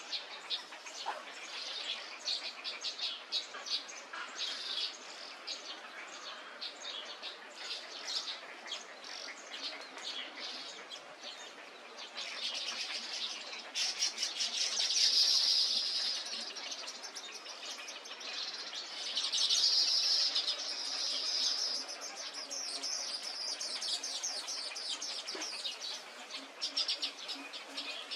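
A dense chorus of many birds chirping and calling at once, with rapid overlapping chirps; it swells louder about halfway through and again a few seconds later.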